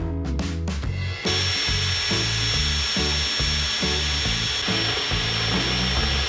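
Cordless drill boring through a steel floor-pan repair panel to make holes for spot welds. It starts about a second in and runs steadily with a high whine, over background music with a steady beat.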